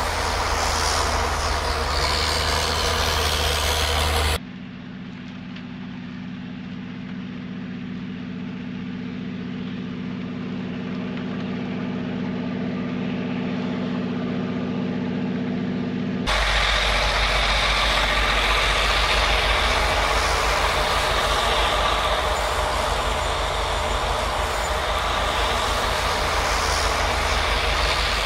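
Union Pacific rotary snowplow train working through deep snow: heavy diesel engines and the blower running with a dense, rushing noise. About four seconds in, it cuts to a quieter, steady engine drone that grows slowly louder as the train approaches. About sixteen seconds in, it cuts back to the loud, close running.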